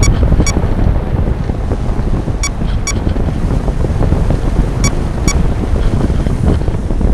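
Airflow buffeting the microphone of a camera mounted on an RC glider in flight, a loud, steady rushing. Pairs of short ticks, half a second apart, recur about every two and a half seconds.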